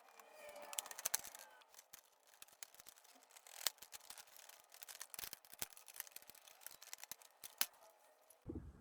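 Faint, irregular clicks and light scraping of small screws and plastic parts being handled while a motorcycle windscreen is unscrewed from its fairing.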